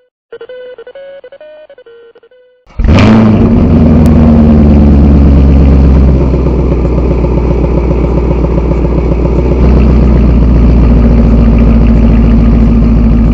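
A short electronic jingle of repeated notes, then about three seconds in a Chevrolet Camaro SS's 6.2-litre V8 starts with a sudden loud burst through its quad exhaust and settles into loud, steady idling.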